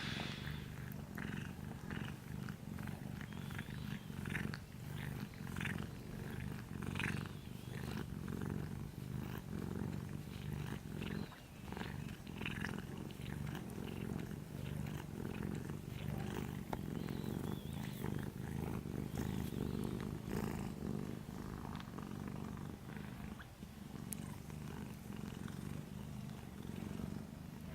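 A small orange cat purring steadily in its sleep, a continuous low rumble.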